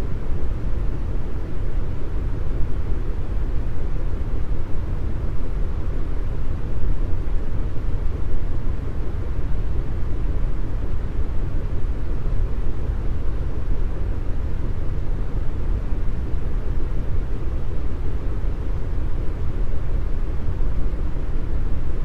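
Deep brown noise: a steady, even rumble of noise, loudest in the low end and with little hiss up high.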